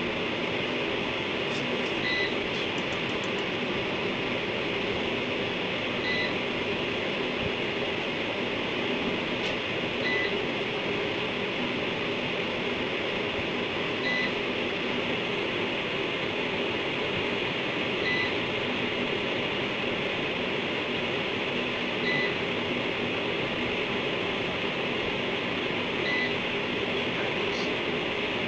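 Steady hum and hiss with a short, high electronic beep repeating about every four seconds.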